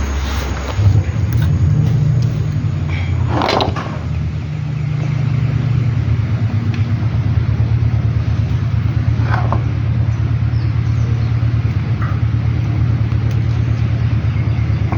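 Toyota Estima engine running with a fast, even pulsing knock, which the mechanic puts down to a faulty balancer shaft gear. The engine note steps up about a second in, and a short sharp noise comes about three and a half seconds in.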